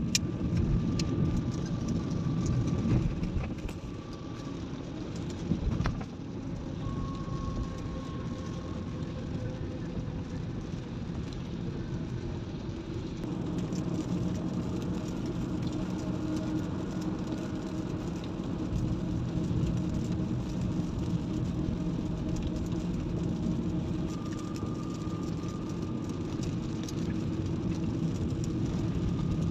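Car cabin on a wet highway: steady engine and road noise with tyre hiss from the rain-soaked road, windscreen wipers sweeping, and a couple of sharp knocks, one right at the start and one about six seconds in.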